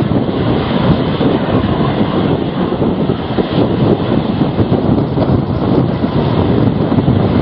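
Strong storm wind blowing across the microphone, loud and uneven.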